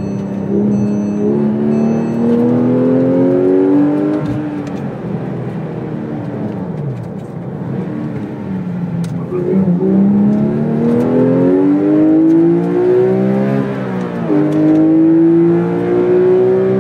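Porsche 911 (997) GT3 RS 4.0's naturally aspirated 4.0-litre flat-six, heard from inside the cabin. It accelerates with revs climbing for about four seconds, then eases off and winds down. It pulls hard again from about ten seconds in, with an upshift near fourteen seconds and the revs climbing once more.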